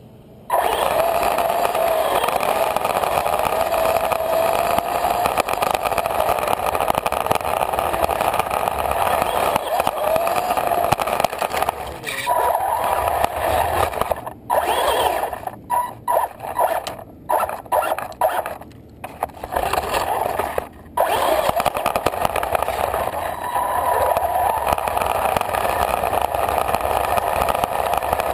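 RC car's drive motor and gears whining, with the tyres rolling over gritty asphalt, heard from a camera riding on the car. The whine rises and falls a little in pitch; roughly midway it stops and starts several times as the throttle is worked, then runs steadily again.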